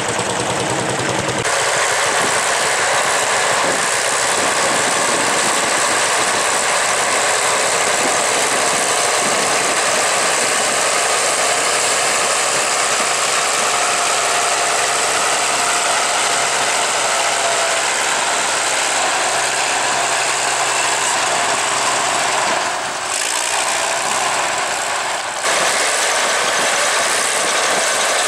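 Diesel engine of a Dutra D4K-B four-wheel-drive tractor running steadily under load while it pulls a plough. The tone changes briefly near the end.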